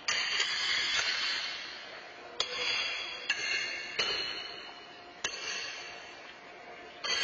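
Pitched horseshoes striking steel stakes and other shoes on several courts: about seven sharp metallic clangs at uneven intervals, some ringing on briefly, each echoing through the large arena.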